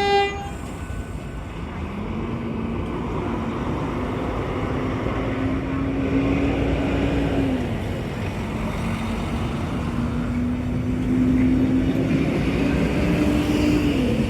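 Electric X'Trapolis suburban train arriving, its traction motors giving a steady whine that climbs a little and drops back twice, over a background of road traffic. A short horn blast sounds right at the start.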